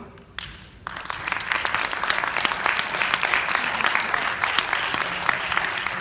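Audience applauding, starting abruptly about a second in and holding steady.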